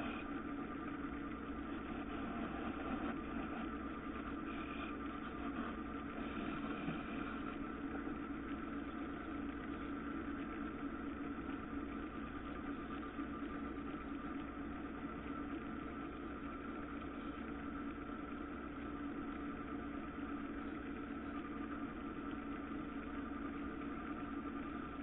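Electric wood lathe running steadily with a constant motor hum, while an aluminium oxide abrasive strip is held against the spinning wooden workpiece, adding a sanding hiss.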